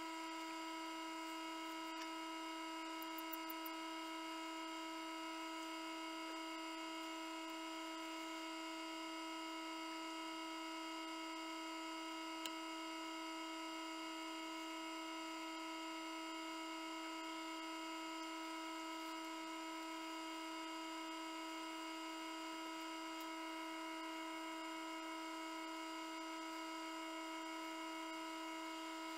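Egg incubator running with a steady, even electric hum, with a couple of faint ticks.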